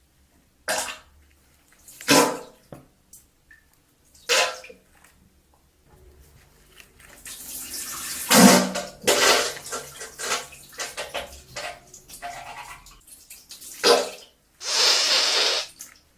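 Diarrhea sound effect: wet, sputtering and splattering bursts, as of liquid stool hitting toilet water. A few short separate splats come first, then a longer stretch of broken sputtering, and a loud wet gush near the end.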